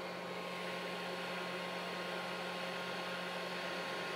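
Steady hum and hiss of a running impinger air sampler, the box that draws ambient air at about 1 litre per minute through its SO2/NO2 absorber tubes. It holds a constant low tone without change.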